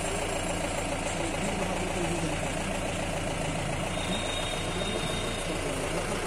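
A car engine idling steadily, with a low, even hum.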